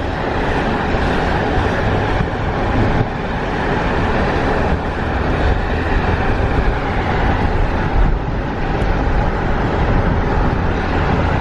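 Steady road noise from inside a moving car: tyre and engine rumble.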